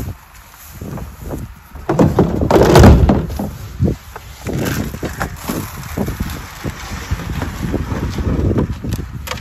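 A plastic water bucket being handled and set into the bucket holder of a plastic calf hutch, with scattered knocks of bucket against hutch and irregular wind buffeting on the microphone. The loudest surge comes about two to three seconds in.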